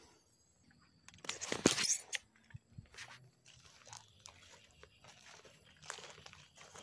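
Crackling and rustling of dry leaves and undergrowth, loudest in a dense burst about a second and a half in, then lighter scattered rustles like footsteps moving through the weeds.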